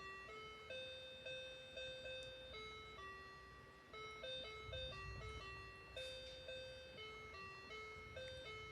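Cheap electronic keyboard playing a simple melody, one note at a time, each note starting sharply and fading, in a thin, chime-like tone.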